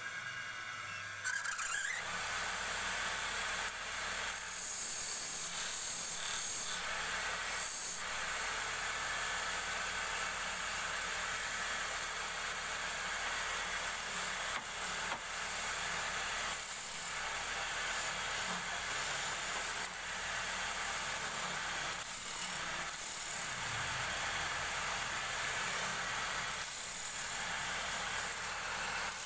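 Wood lathe spinning a wooden blank while a hand-held turning tool cuts into it: a steady scraping hiss of the cut that starts about a second in, with a few short breaks where the tool eases off.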